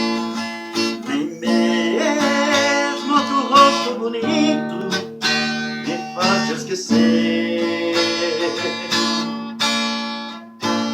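Acoustic guitar strummed in a slow ballad, chords ringing on, with a man's voice singing a line in Portuguese near the end.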